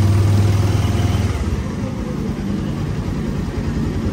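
Benelli 302S's 300 cc parallel-twin engine running while the motorcycle is ridden at walking pace. It holds a steady hum, then eases off about a second and a half in and runs on rougher and lower.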